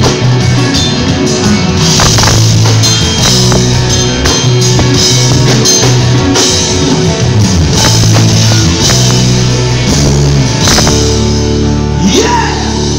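Live rock band of electric guitars, bass and drum kit playing loudly. About eleven seconds in, the drumming stops and a held chord rings, with a guitar note sliding up near the end.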